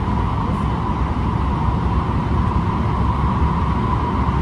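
Steady running noise inside the passenger cabin of a JR West 223 series electric train under way: a deep rumble of wheels on track with a steady mid-pitched hum above it.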